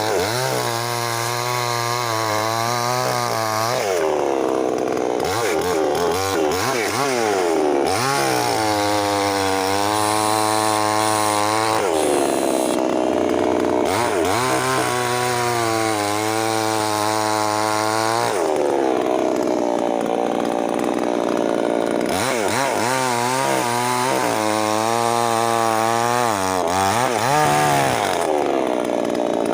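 Foresta FA-62LX two-stroke petrol chainsaw engine revved up and held at high revs for a few seconds, then dropping back, about four times over.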